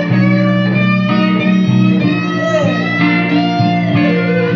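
Guitars playing a slow blues between sung lines, with a steady chordal backing under a lead fill whose note is bent in pitch about halfway through.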